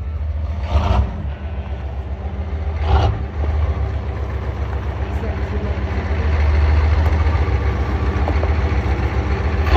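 Engine running at a steady idle, with two brief louder bursts about one and three seconds in.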